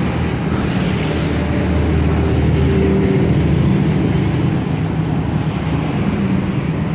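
Road traffic passing close by: a motor vehicle's engine hum that swells to its loudest a few seconds in, then eases off.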